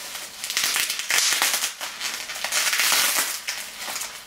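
Plastic bubble-wrap packaging crinkling and crackling as it is handled and pulled open, a dense run of sharp crackles beginning about half a second in.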